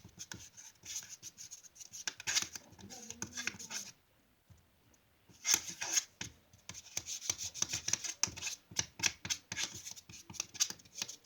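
The eraser end of a pencil stirring hand sanitizer and water in a container: rapid rubbing and scraping strokes against the container, pausing for about a second and a half near the middle before going on.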